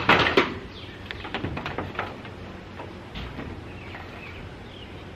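Knocks and scrapes on corrugated metal roofing, a cluster of sharp loud ones at the start, then scattered lighter taps. Birds chirp faintly through the second half.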